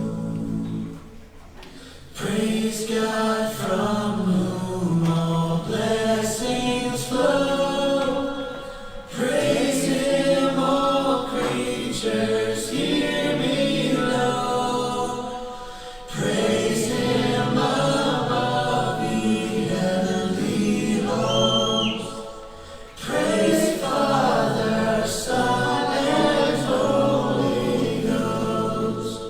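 Choir singing a sacred piece in phrases, with short breaks between them every six or seven seconds.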